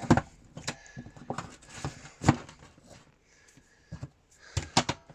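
Scattered sharp plastic clicks and knocks from handling a Shark Lift-Away vacuum's floor head as its brush bar cover is unclipped and the brush bar is taken out; the vacuum is not running.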